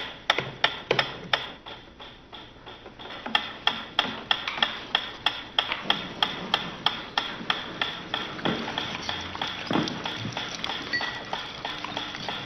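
Mechanical metronome ticking steadily at about three ticks a second, the ticks softening briefly about two seconds in before coming back louder.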